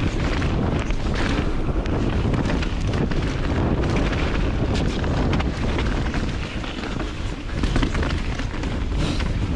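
Heavy wind rumble on the camera microphone from a mountain bike descending at speed, with tyres rolling on dirt singletrack and a stream of short rattles and knocks from the bike over bumps.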